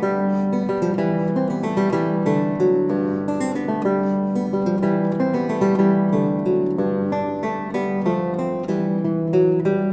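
Background music on acoustic guitar: plucked notes played continuously.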